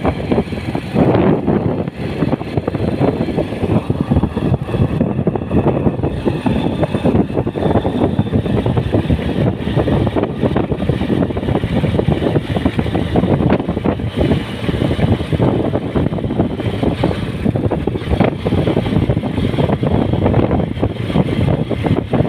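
TVS motorcycle running as it is ridden along a road, heard from the rider's seat, a continuous loud engine and riding noise.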